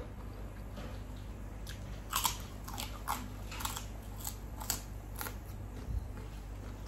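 Close-up crunchy chewing: someone biting into and chewing crisp food, with about seven sharp crunches in quick succession between two and five seconds in, over a faint steady low hum.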